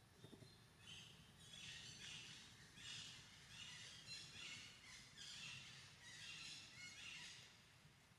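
A faint run of about a dozen short, high chirping calls, each sliding down in pitch, coming roughly twice a second from about a second in until near the end.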